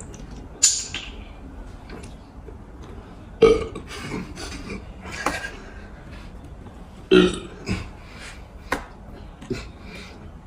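A person burping several times after drinking carbonated cola, with loud burps about three and a half and seven seconds in and smaller sounds between.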